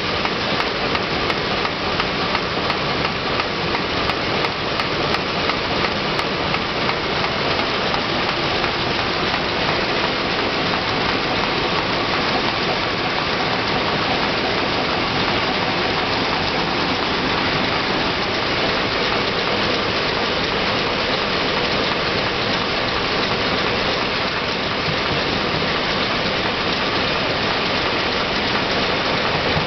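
Film packaging envelope pasting machine running steadily, an even, dense mechanical noise with no pauses.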